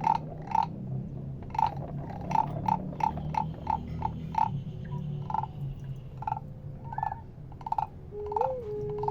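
Handmade sound objects making short, pitched, clicking taps at an uneven pace of roughly two a second over a low rumble, with a brief whistle-like tone that bends up and back near the end.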